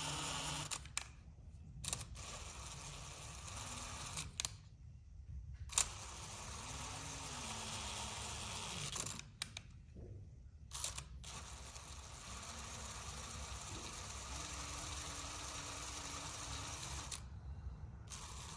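Cordless drill turning a thread tap slowly into an oiled hole, cutting new threads for a coil thread insert. It runs faintly in stretches with a low, shifting motor hum, stopping briefly several times.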